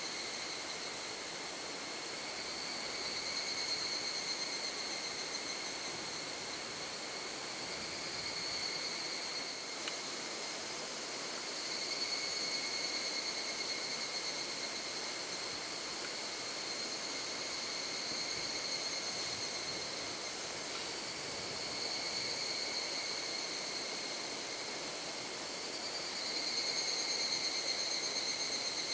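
Insects calling in a high, steady chorus that swells and fades every few seconds, over the even rush of a river.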